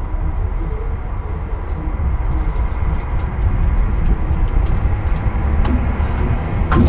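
A steady low rumble, with faint ticks from about halfway through as a person walks up on foot.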